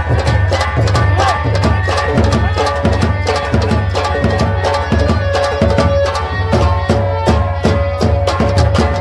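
Live stage band music: fast, dense hand-drum playing over a steady bass, with a few held melody notes.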